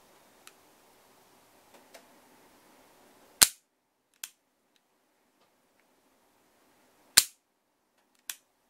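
The lockwork of an HWS Type 26 model revolver, side plate off, worked double-action: the hammer falls with a sharp metallic snap twice, each snap followed about a second later by a softer click. A few faint handling ticks come before the first snap.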